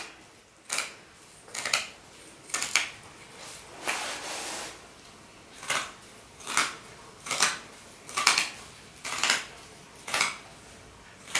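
Scissors cutting through sequin fabric: a steady run of about a dozen snips, roughly one a second, with one longer cut about four seconds in.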